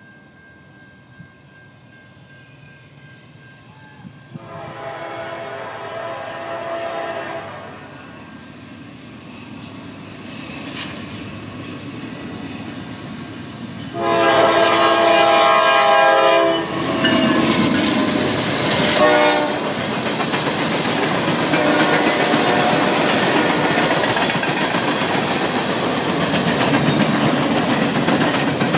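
Norfolk Southern freight train, led by a GE D9-40CW and an EMD SD60, approaching and passing. Its air horn sounds two long blasts, about four seconds in and again about fourteen seconds in, the second louder. The diesel locomotives then go by and the freight cars roll past with wheels clicking over the rail joints.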